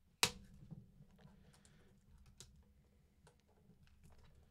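Fingers handling a clear plastic box and picking at the seal sticker on its edge: one sharp click about a quarter second in, then scattered light clicks and ticks.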